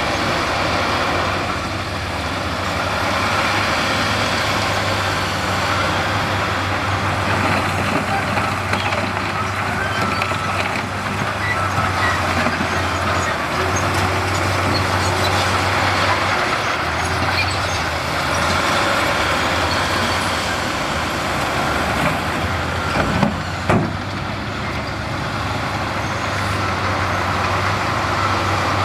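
Heavy diesel earthmoving machinery, bulldozer and dump trucks working a rock fill, running steadily with a deep hum. A couple of sharp knocks come about three-quarters of the way through.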